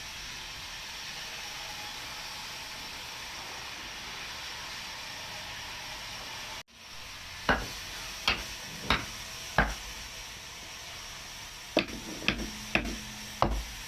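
Steady hiss of sawmill noise, which cuts off suddenly about halfway through. Then come eight sharp knocks: four about 0.7 s apart, a short pause, then four more.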